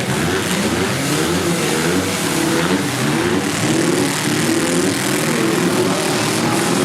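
Four-cylinder demolition derby cars' engines revving up and down together, several pitches rising and falling over a dense wash of engine and tyre noise.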